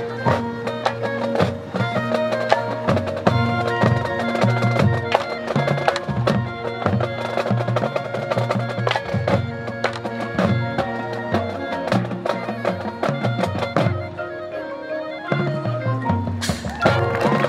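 High school marching band playing: brass over drums and marimba-type mallet percussion, with many short struck notes. A loud, bright hit comes in about a second before the end.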